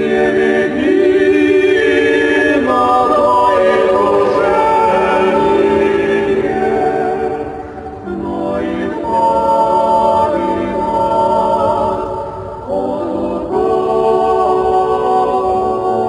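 Background music: a choir singing long held notes in several voices, with a break between phrases about eight seconds in and again near thirteen seconds.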